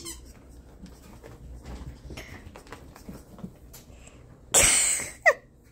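A small puppy playing on carpet: faint scuffling for several seconds, then a loud breathy rush of noise and a short, falling, high squeal near the end.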